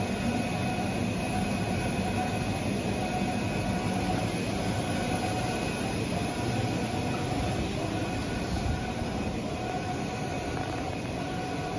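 A machine drone runs steadily, with a few faint whining tones held at constant pitch.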